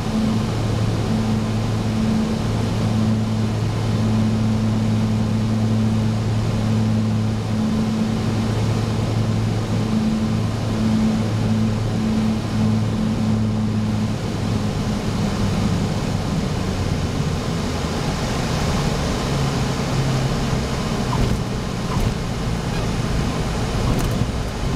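Cessna light aircraft's piston engine and propeller droning steadily, heard inside the cabin over rushing air on final approach. About halfway through the engine note drops away as power comes back for the landing, leaving mostly airflow noise.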